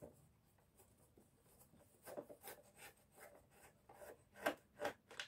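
Faint scraping and clicking of a screwdriver turning out a screw that holds a vacuum cleaner motor in its housing, with a few sharper ticks near the end.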